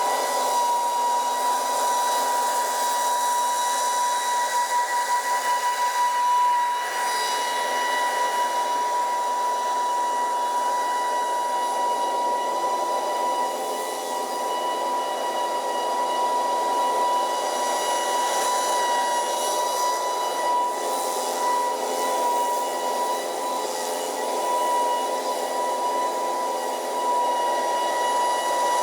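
2019 Scag Windstorm stand-on leaf blower running steadily: a constant high whine over a rush of blown air.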